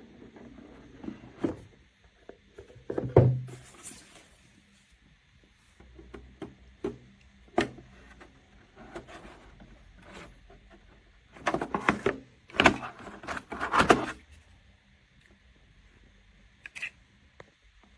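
Irregular handling noises: scattered knocks, clicks and rustles, with a louder burst about three seconds in and a busier stretch of knocks about eleven to fourteen seconds in.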